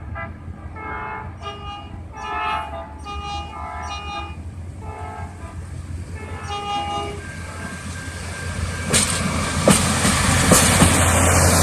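Railroad repair equipment sounding a series of short horn blasts, then a rail vehicle passing close, its wheels clicking over rail joints as the noise builds toward the end.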